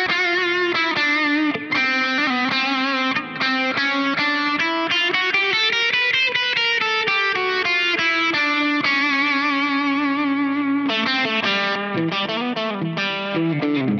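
Electric guitar, a Fender Aerodyne Special Telecaster, played through the Caline Key West's compressor and overdrive: long sustained single notes with vibrato and a slow bend up and back down in the middle, then chords in the last few seconds.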